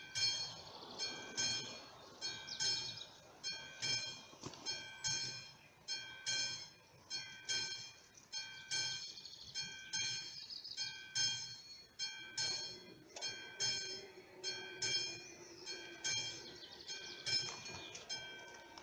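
Classic electromechanical bell of a Czech AŽD 71 level-crossing warning system ringing in evenly spaced strikes, about five every three seconds, as the crossing is activated and the barrier arms come down. A faint low hum joins about twelve seconds in, and the bell stops shortly before the end, once the barriers are down.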